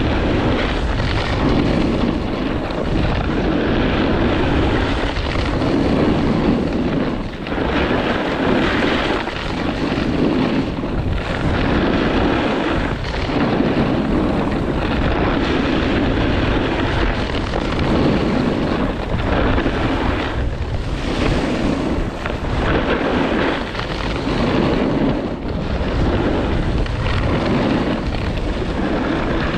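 Snowboard edge scraping and carving over groomed snow, swelling and easing with each turn, under a steady rush of wind on the microphone.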